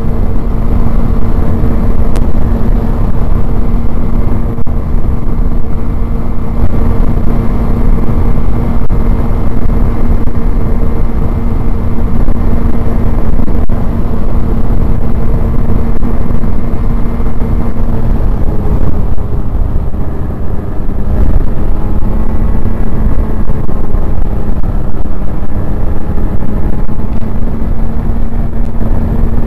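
Snowmobile engine running at a steady cruising speed over a heavy low rumble. A little over halfway through, the engine note drops and wavers for a few seconds, then settles back to a steady pitch.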